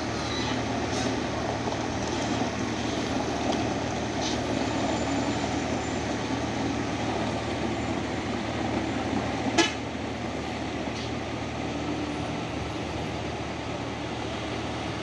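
Heavy diesel dump truck engine running steadily under load as the truck climbs a muddy, unpaved slope, with one brief sharp blip about nine and a half seconds in.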